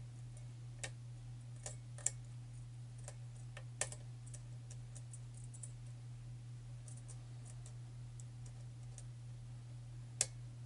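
Sparse, faint metallic clicks of a thin Praxis lock pick working the pins of a pin-tumbler challenge lock through a tight paracentric keyway, with a few sharper clicks, the sharpest near the end. A steady low hum runs underneath.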